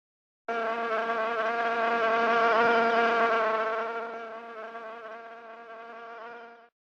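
A flying insect buzzing: one steady, even hum that starts about half a second in, swells, then fades away and cuts off shortly before the end.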